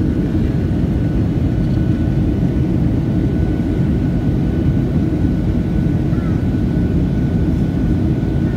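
Jet airliner cabin in flight: the wing-mounted turbofan engine and rushing air heard from a window seat as a steady low rumble, with a faint steady high whine above it.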